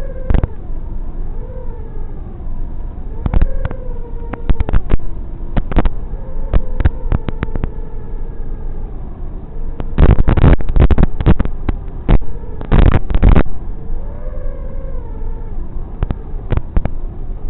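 FPV quadcopter's motors whining, the pitch rising and falling as the throttle changes, with many sharp crackles and clicks. Two loud rough bursts of noise come about ten and thirteen seconds in.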